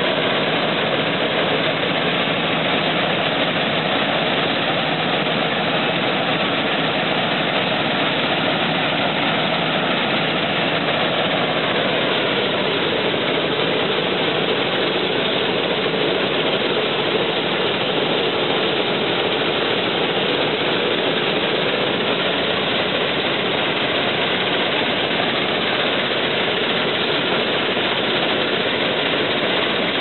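Combine harvester running steadily while cutting rice, a constant, even engine and machinery noise with no change in pitch or level.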